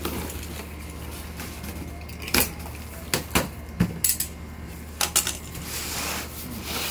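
Cardboard shipping box being cut open with a box cutter and its flaps pulled apart: a run of sharp snaps and knocks in the middle, then cardboard and plastic packing rustling near the end.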